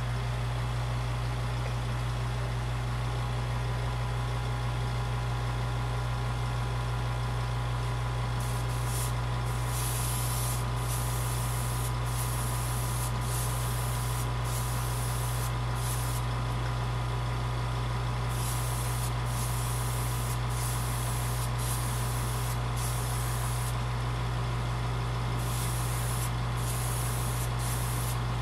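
Airbrush hissing in repeated short on-off passes as a second coat is sprayed onto a model car body, starting about eight seconds in. Underneath runs a steady low motor hum.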